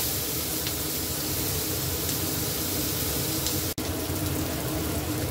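Onions, capsicum and green tomatoes sizzling steadily in hot oil in a cast iron skillet while being stir-fried. The sound drops out for an instant about three-quarters of the way through.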